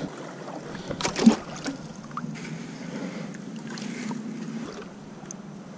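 Orange plastic bucket handled at the water's edge and dipped into lake water: a short clatter of knocks about a second in, then steady water sloshing and lapping with a faint low hum underneath.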